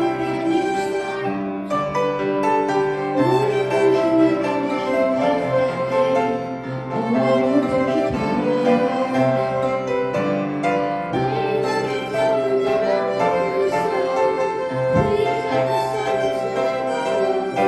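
Two violins playing a melody with vibrato over a sustained chordal accompaniment.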